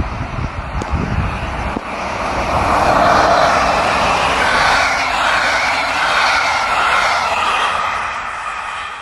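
Locomotive-hauled passenger train passing at speed, with wheels rushing over the rails. The noise builds after about two seconds, stays loud while the coaches go by, and fades near the end as the train recedes.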